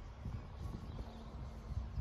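Wind buffeting the microphone outdoors, a low steady rumble, with a faint steady hum coming in about halfway through.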